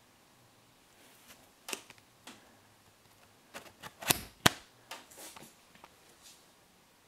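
Thin wood veneer sheets in a stack being thumbed and handled by hand: a scatter of dry clicks and knocks, the two loudest about four seconds in, half a second apart.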